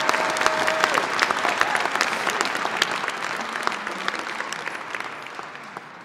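A crowd applauding, the clapping dying away gradually.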